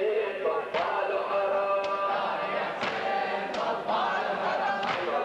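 A crowd of men chanting together in unison, a Muharram latmiya mourning refrain, with sharp slaps about once a second from chest-beating in unison.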